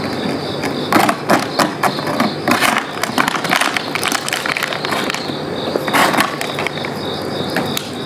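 Plastic lunch box scraping and clattering over concrete as a puppy pushes and noses it along, a run of knocks and scrapes from about a second in until near the end. Crickets chirp steadily underneath.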